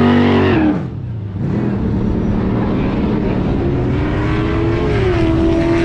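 A vintage car's engine at full throttle as it launches down a drag strip, revs held high, then the pitch falls sharply about a second in and the engine keeps pulling, climbing again more faintly as the car moves away.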